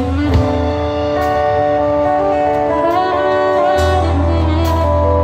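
Band music without singing: long held melody notes over a steady bass line.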